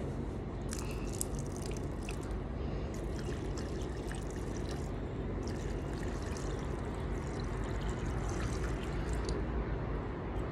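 Water poured out of a drinking glass onto the ground, splashing and dripping in uneven spells, over a steady low background rumble.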